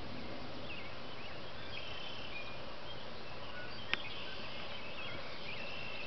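Faint high chirps and short twitters from small birds over a steady background hiss, with a single sharp click about four seconds in.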